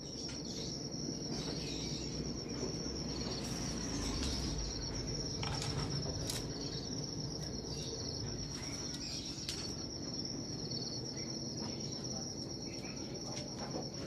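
A cricket trilling steadily in one high, unbroken tone over low, even room rumble, with a few faint clicks.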